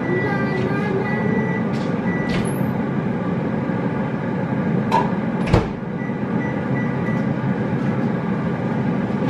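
Steady mechanical noise of a running kitchen appliance, with a sharp knock about five and a half seconds in.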